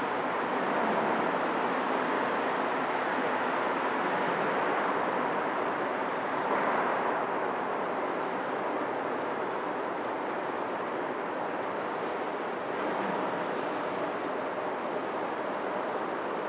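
Steady harbour ambience: a constant wash of distant noise over the water with a faint steady hum in it, unbroken by any distinct sound.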